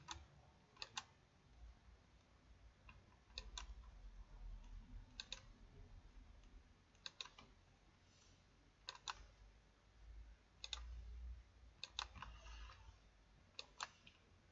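Faint computer mouse clicks: quick pairs of clicks every one to two seconds, over low room noise.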